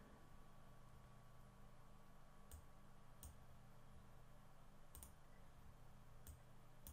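Near silence with about five faint computer mouse clicks spread over several seconds, over a faint low hum.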